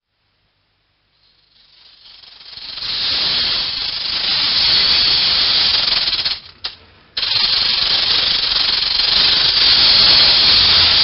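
Rattlesnake's tail rattle buzzing steadily. It fades in over the first two seconds, breaks off briefly about six and a half seconds in, then resumes.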